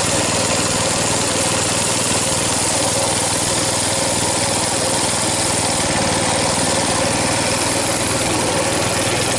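Coleman BT200X mini bike's 196cc single-cylinder four-stroke engine running steadily as the bike rolls along a dirt trail, holding an even pitch.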